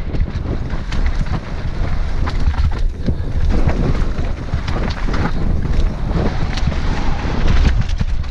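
Wind buffeting a helmet-mounted action camera's microphone as a mountain bike descends a rocky trail at speed, with a dense rumble and rapid knocks and rattles from the tyres and bike over loose stone.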